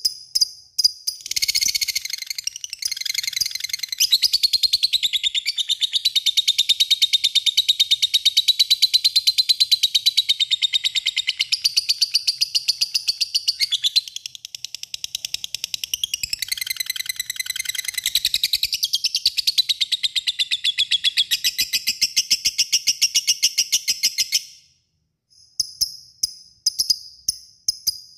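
Lovebird giving a long 'ngekek': a rapid, high-pitched chattering trill that runs on for over twenty seconds, wavering in pitch, then breaks off suddenly near the end.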